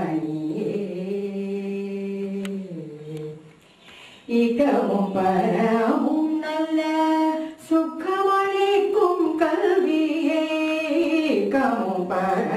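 A woman singing a Carnatic vocal line, holding long notes that slide from pitch to pitch. The singing breaks off briefly after about three seconds, then goes on.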